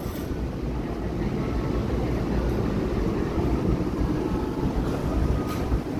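Portable evaporative air cooler's fan running with a steady low rush.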